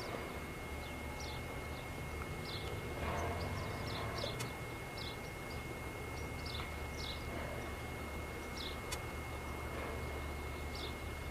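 Small birds chirping in short, high, repeated notes at irregular intervals, over a low steady hum and a thin constant high tone.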